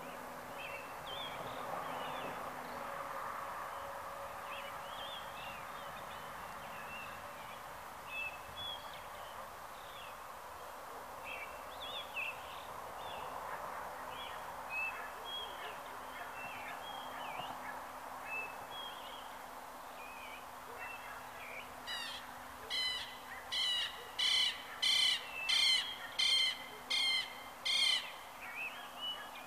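Southern lapwing (queltehue) giving a run of about ten loud, harsh calls, roughly one every two-thirds of a second, near the end. Before that, scattered faint bird chirps over a low steady hum.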